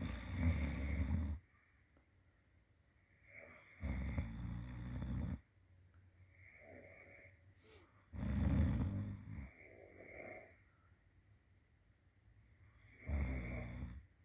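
A sleeping person snoring: four loud snores, each a second or so long, about every four seconds, with softer breaths between them.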